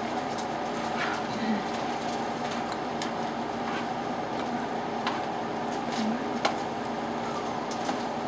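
A utensil scraping and lightly clicking against a large sauté pan as pasta and vegetables are tossed, a few faint clicks spread over several seconds, over a steady background hum.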